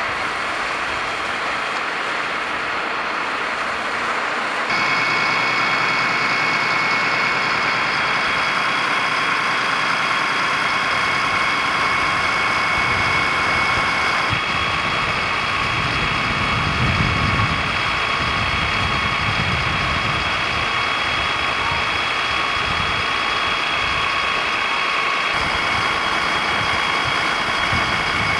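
Fire engines running at the scene: a steady engine drone with a high, steady whine over it. The sound changes abruptly about five, fourteen and twenty-five seconds in, and a deeper rumble swells for a few seconds in the middle.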